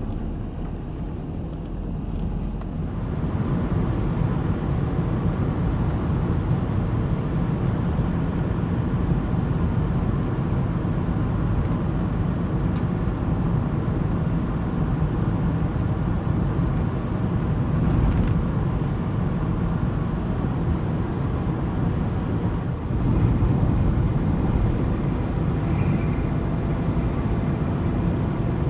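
Ford Transit van on the move, a steady engine and road rumble heard from inside the cab, growing louder about three seconds in.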